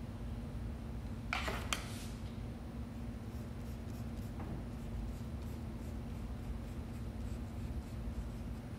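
Paintbrush strokes on paper, a soft scratchy brushing, with a couple of sharp clicks about a second and a half in, over a steady low hum.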